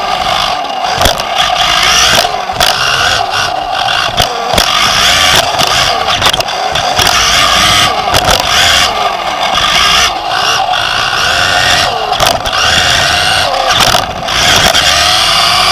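Team Associated B5M electric 2WD RC buggy racing, heard from a camera mounted on the car: the electric motor and drivetrain whine, rising and falling in pitch as the car accelerates and slows. Under it runs the rumble of tyres on the track, broken by sharp knocks and clatter from jumps and landings.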